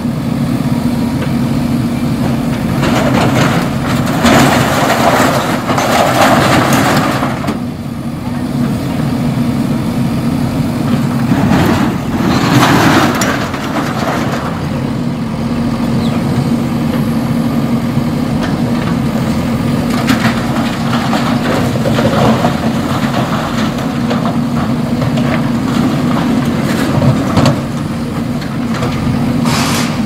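JCB backhoe loader's diesel engine running steadily, with louder bursts of noise about three to seven seconds in and again around twelve seconds in as the arm tears down corrugated-metal structures.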